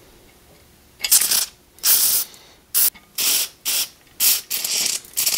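Aerosol brake cleaner sprayed through steel diesel injection lines in about seven short hissing bursts, starting about a second in, flushing out any dust before the lines are fitted.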